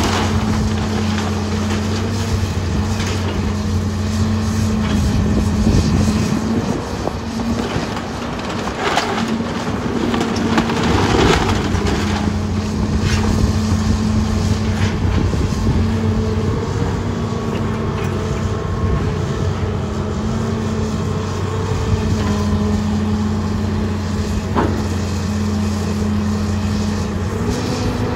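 John Deere 270C excavator's diesel engine running steadily under hydraulic load, its pitch stepping up and down as the boom works. Wooden barn framing and siding crack and clatter as they are torn apart, in a cluster about a third of the way in and in one sharp crack near the end.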